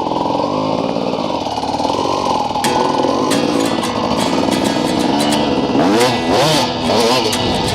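Dirt bike engine running under way, with the revs rising and falling several times in the last couple of seconds.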